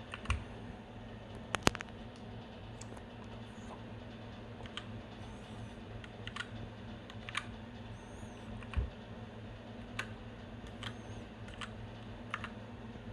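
Single key presses on a Keychron K6 mechanical keyboard, about one a second at uneven intervals, the loudest a quick double click near the start, over a steady low hum.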